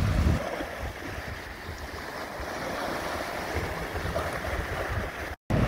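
Small waves washing onto a sandy beach, with wind rumbling on the microphone. The sound drops out for an instant near the end.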